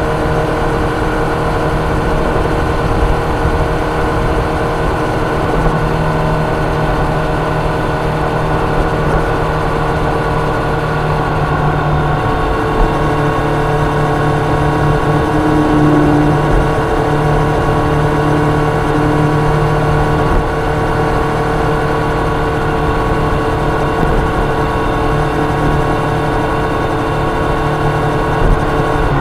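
Kawasaki Ninja 1000's inline-four engine running at a steady, fairly high engine speed. The motorcycle is cruising with an even exhaust note and a constant rush of noise underneath.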